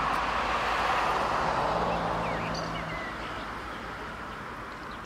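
A passing vehicle whose steady noise fades as it moves away, with a couple of faint bird chirps about two and a half seconds in.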